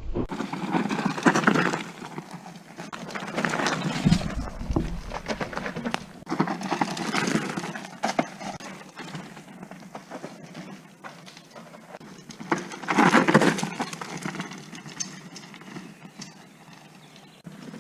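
Mountain bike riding downhill on a dirt trail: tyres crunching and sliding over loose ground with rattling clicks from the bike, in several louder surges, the loudest about two-thirds of the way through.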